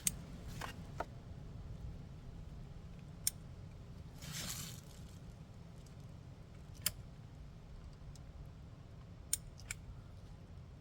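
Work gloves being handled and pulled on: scattered light clicks and a brief rustle about four seconds in, over a steady low hum.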